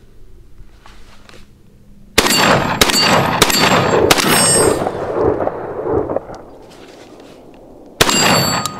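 Beretta 1301 Tactical 12-gauge semi-automatic shotgun firing high-brass #5 shot. A quick string of shots starts about two seconds in and echoes away, and another shot follows near the end. Steel plate targets ring from the hits.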